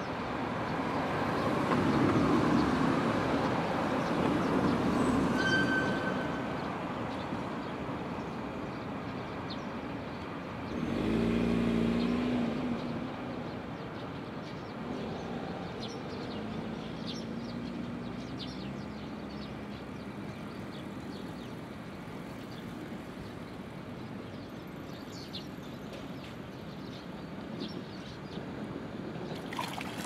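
Passing vehicle traffic: a broad rush that swells and fades over the first few seconds, then a brief pitched hum about eleven seconds in. A short splash near the end as carp break the water's surface.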